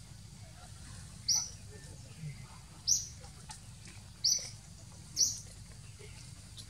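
An animal's short, high-pitched chirps, four in a row about a second or a second and a half apart, over a faint steady low hum.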